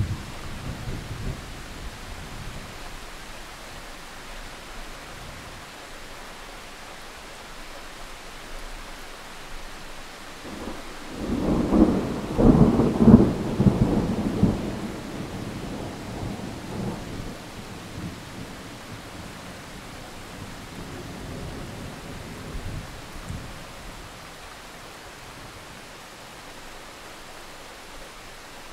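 Thunderstorm: steady rain, with a roll of thunder building about eleven seconds in, loudest for a few seconds, then rumbling away.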